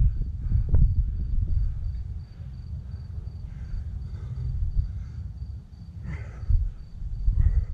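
Crickets trilling steadily at a high pitch over a low, gusty rumble of wind on the microphone.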